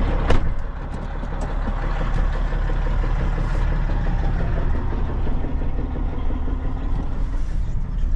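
Peterbilt day cab's diesel engine idling steadily while warming up and building air pressure. A single short knock sounds about a third of a second in.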